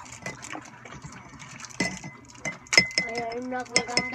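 Snack packages and containers being handled: sharp clinks and knocks, the loudest about two and three seconds in, with a high voice-like sound from about three seconds.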